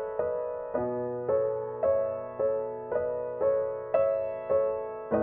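Background piano music: single notes struck about twice a second, each one fading before the next.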